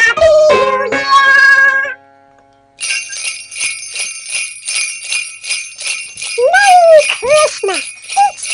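A tune ends about two seconds in. After a short gap, jingle bells shake in a steady rhythm, about three shakes a second, and from about six seconds in a high voice with sliding pitch joins over the bells.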